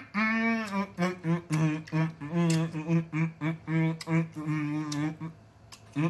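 A man humming a tune, a chant-like string of held notes at nearly the same pitch. One long note opens it, short notes follow about three a second, and a longer note comes near the end before a short pause.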